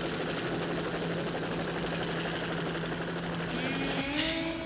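Helicopter rotor noise, a steady dense wash with a low hum. Near the end the hum drops away and a rising, then held, tone comes in.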